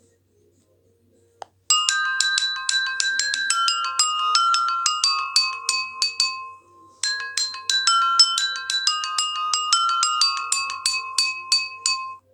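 Marimba-like ringtone from an Optus X Start 2 phone's speaker: a fast melody of quick plinking notes starts after a click about a second and a half in, stops briefly, then plays again.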